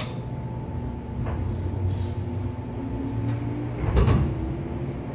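Interior running sound of a 415 series electric train's motor car under way: steady rumble and motor and gear hum, with hum tones rising in pitch in the second half as the train gathers speed. Sharp knocks and rattles come through the car body, the loudest a clatter about four seconds in.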